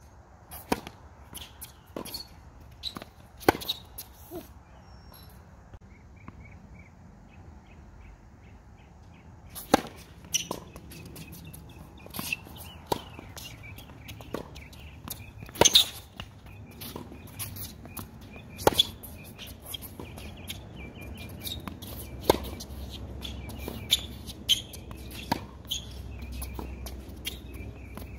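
Tennis balls popping off racket strings and bouncing on a hard court during a serve and rally. The sharp hits come about every second, with a pause of about five seconds early on.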